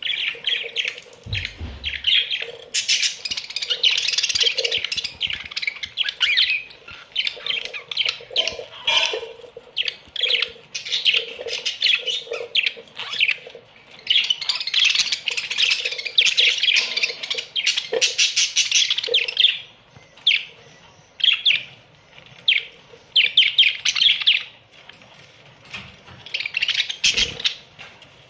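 A colony of budgerigars chattering and chirping, many birds at once in fast warbling bursts with short squawks, easing off briefly around twenty seconds in and again near the end.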